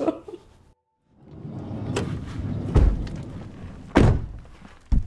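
Near silence for a moment, then a rising rush of noise broken by three deep thumps, each about a second apart, in the second half.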